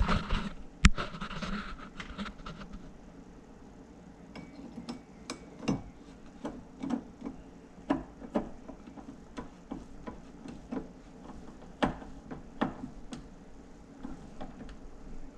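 Irregular small clicks and knocks of cabinet hardware being handled: a screw being tightened by hand from the back of a cabinet door to hold a handle, with a few sharper knocks against the door.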